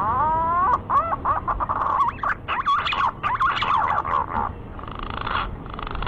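Green pigeon (punai) song. It opens with a few rising whistles, runs into a fast, wavering series of warbled whistles, and ends with harsher, buzzy notes near the end.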